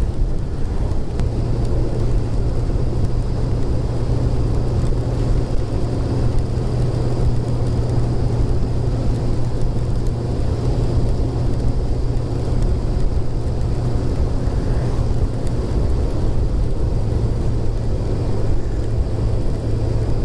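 Kawasaki ZX-6R inline-four engine running steadily at cruise, its note holding an even pitch, under a constant rumble of wind and road noise on the microphone.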